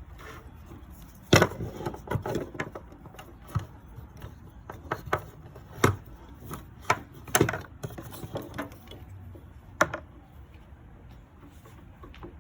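Welding leads with their ground clamp and electrode holder being handled and uncoiled: irregular clicks and knocks over a low rustle, loudest about a second in, near the middle and near the end.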